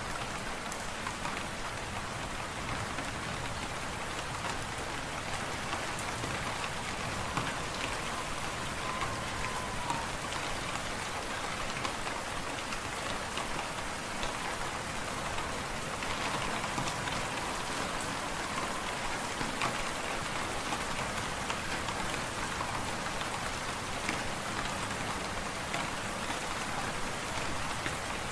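Wood fire crackling in a fireplace over a steady hiss of wind and snowstorm. A faint whistle rises twice, about eight seconds in and again about sixteen seconds in.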